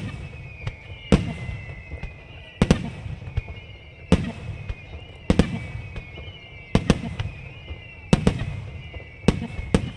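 Aerial firework shells bursting, a sharp bang every second or so, often two in quick succession, each followed by a rumbling echo. High whistling tones glide slowly down between the bangs.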